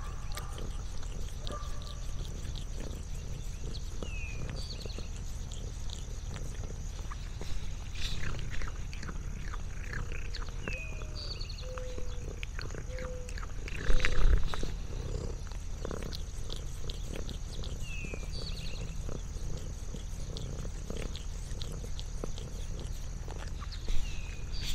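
Domestic cat purring steadily close to the microphone, with scattered small clicks and a louder thump about 14 seconds in.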